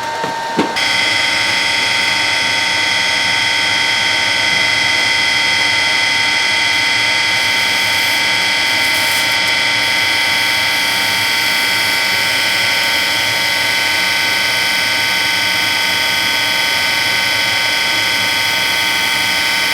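Surface grinder starting up about a second in, then running steadily with a high whine, as the wheel is brought down to touch off on the workpiece.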